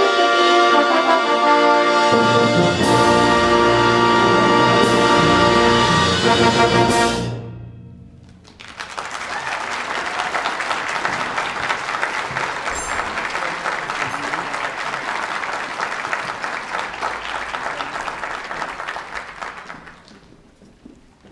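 Military concert band of brass and woodwinds playing the closing bars of a fanfare, with sharp crashes, and ending on a held chord about seven seconds in. After a brief ring-out, an audience applauds for about eleven seconds, and the applause fades near the end.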